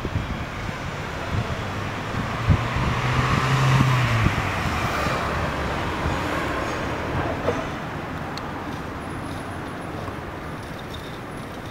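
Road traffic noise: a motor vehicle passes, with a low engine hum, loudest about four seconds in, then fading back to a steady traffic hiss.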